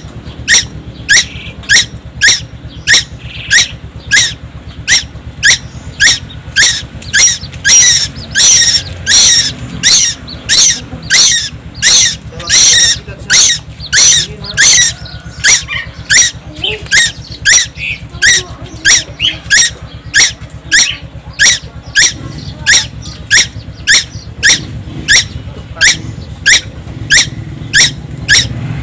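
Young tuwu (kolton) songbird of Timor calling incessantly: one short, sharp, high note repeated evenly just under twice a second without a break, over a low steady hum.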